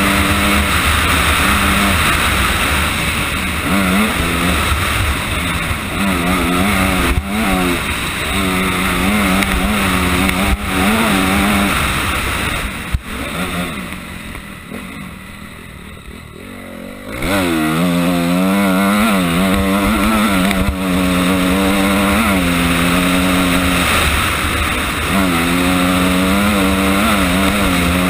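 Honda CRF250R motocross bike's single-cylinder four-stroke engine revving hard and rising and falling through the gears, over a steady rush of wind on the onboard microphone. About halfway the throttle closes and the engine drops to a low burble for a few seconds, then it revs back up.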